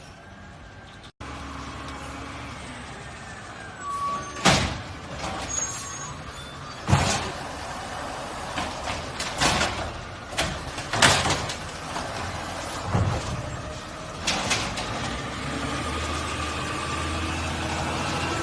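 Garbage truck running, with several sharp loud bangs and hisses over its steady low engine rumble, and the engine growing louder near the end.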